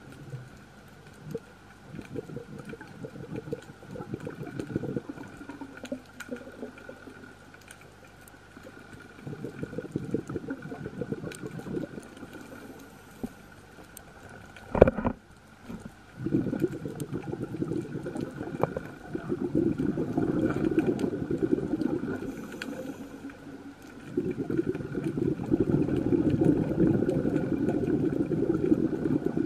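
Underwater bubbling from a scuba diver's exhaled breath, in long bursts of a few seconds with quieter gaps between breaths. There is a single sharp knock about halfway through.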